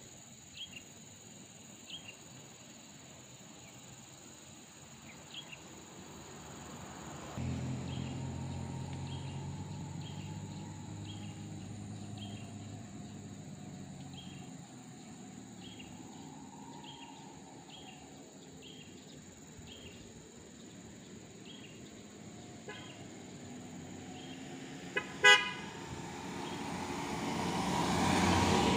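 Road traffic: a vehicle engine hum comes in about seven seconds in, a car horn gives one short toot about 25 seconds in, and a car drives up and passes close near the end. Insects chirp steadily underneath throughout.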